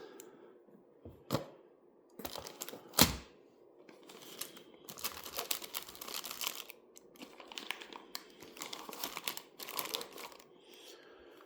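Plastic packaging bags crinkling and rustling as kit parts are handled, with a few sharp clicks or knocks, the loudest about three seconds in.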